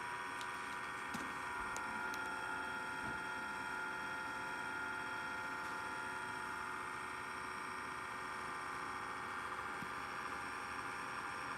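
Steady electrical whine and hum from a device, several high tones held at an even level, with a few faint ticks.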